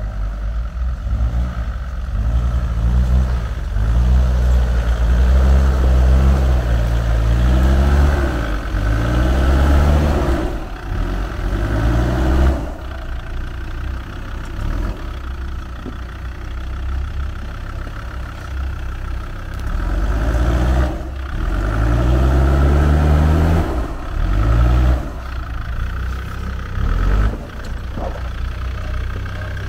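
Off-road 4x4's engine revved again and again under load, each rev rising in pitch. There are two clusters of revs, with quieter running between them.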